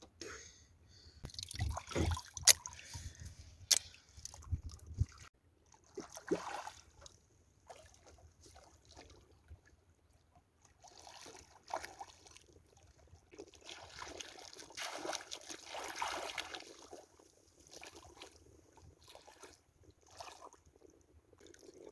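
Water sloshing and trickling in irregular washes, with a few sharp clicks in the first few seconds.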